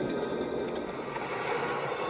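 Locomotive brakes squealing as a train slows: a steady rushing noise with high, thin squealing tones that grow steadier about a second in. Heard as a film soundtrack played back and recorded off a TV.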